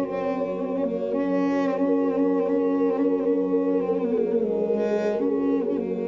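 Armenian duduk, a double-reed woodwind, playing a slow melody of changing notes with bends and a falling slide about four seconds in, over a steady low drone note.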